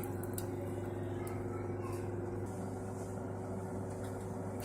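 Microwave oven running at full power with a steady hum, and a few faint crackles from black chickpeas starting to pop as they roast in a folded paper bag inside.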